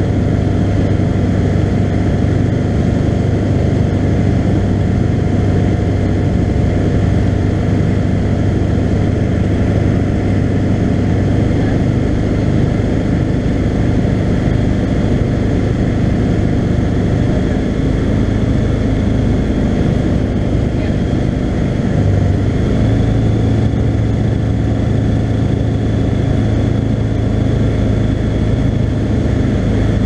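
Skyranger Classic microlight's engine and propeller droning steadily, heard from inside the cockpit in flight; the pitch steps up slightly about two-thirds of the way through.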